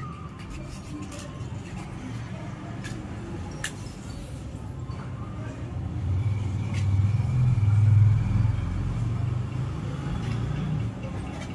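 Low rumble of a road vehicle passing by, swelling about six seconds in, loudest about two seconds later, then fading. A few light clicks sound before it.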